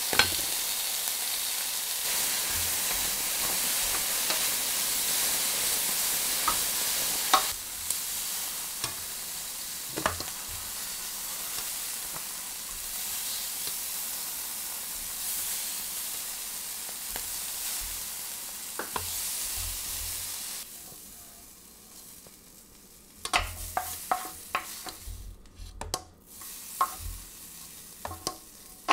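Bell pepper strips sizzling in hot oil in a stainless steel frying pan, stirred with a wooden spatula, with an occasional knock. About two-thirds of the way through the sizzle drops away, and clinks and taps of utensils against the pan follow as the peppers are lifted out.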